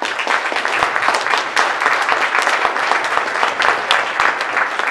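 Audience applauding, many hands clapping at once, starting abruptly and loud.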